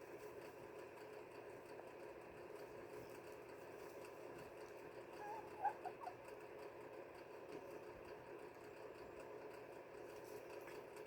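Faint steady hum with a brief cluster of short squeaky calls from a small animal about halfway through.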